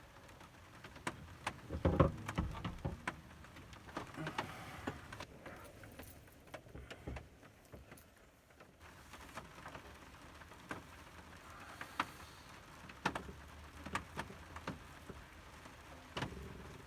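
Light rain falling, with scattered irregular drips tapping on a surface and a louder thump about two seconds in.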